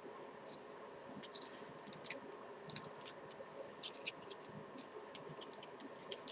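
Faint, scattered small clicks and light rustles of craft-kit pieces and their packaging being handled.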